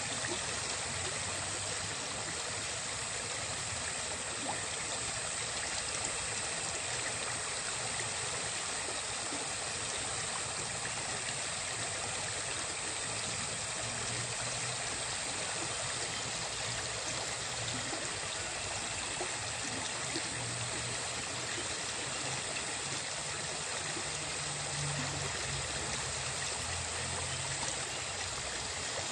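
Water from a small cascade spilling down a bank into a pond: a steady splashing rush of running water.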